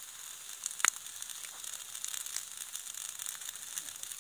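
Campfire of logs and green pine branches crackling and hissing, with a sharp pop just under a second in.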